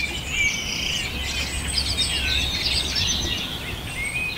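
A chorus of small birds chirping and singing at once, many short high chirps and trills overlapping, over a low rumble.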